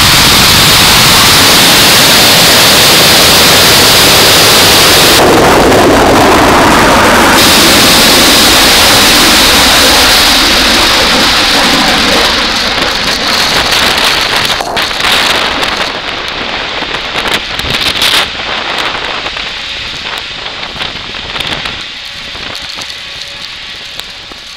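ULA Atlas V rocket lifting off at close range: the RD-180 main engine and solid rocket boosters make a dense, distorted rumble at full level. After about ten seconds it fades steadily as the rocket climbs away, turning into a ragged crackle.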